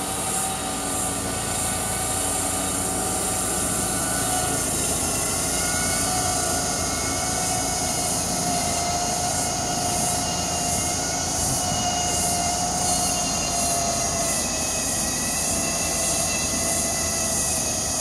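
Roboflail 1 remote-control tracked slope mower running steadily under load as its flail cuts through thick, dense scrub grass. It makes a continuous drone with a high whine that wavers slightly in pitch.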